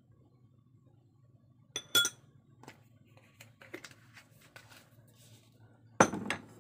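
A metal spoon clinks against a ceramic bowl about two seconds in, ringing briefly, followed by a few faint clicks and a louder knock near the end.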